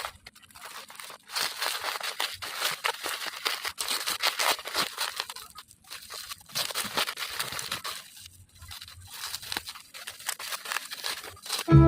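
Packaging being opened by hand: irregular crinkling, rustling and tearing, with short pauses.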